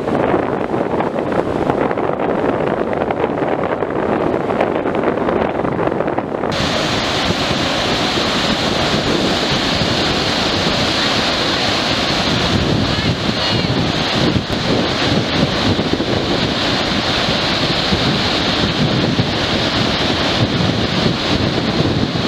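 Rough surf breaking on a beach, a steady rushing wash, with wind buffeting the microphone. The sound turns abruptly brighter and hissier about six seconds in.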